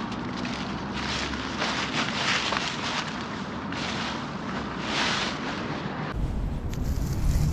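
Footsteps walking at an uneven pace, each step a short rustle. About six seconds in, wind on the microphone sets in with a low rumble.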